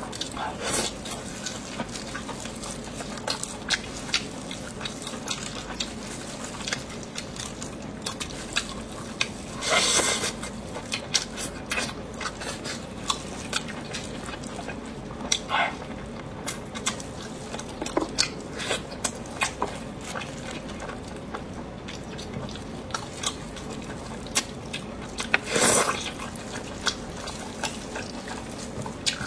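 Close-up wet eating sounds: many small smacking and clicking mouth noises, with a few longer wet bursts about a third of the way in, around the middle, and near the end, and clinks of utensils against dishes.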